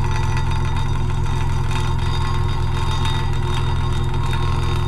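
Vehicle engine idling steadily, heard right at the exhaust tailpipe as a constant low drone.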